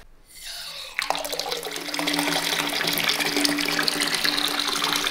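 Bath tap turned on about a second in, water gushing steadily from the spout into a partly filled bath, with a steady low hum beneath the splashing.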